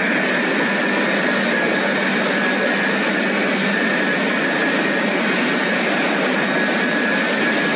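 Large forklift's engine running steadily: a constant, even rushing noise with a faint high whine and no change in pitch.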